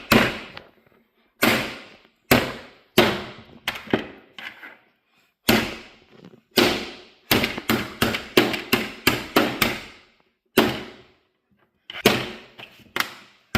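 About twenty hard blows on a plastic power outlet, struck again and again in uneven runs, each a sharp crack with a short ring. The quickest run comes in the middle at about three a second, with a brief pause near the end.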